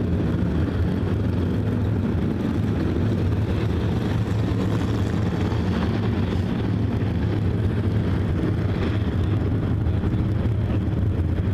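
A field of IMCA hobby stock race cars running on a dirt oval: a steady, loud drone of many engines together.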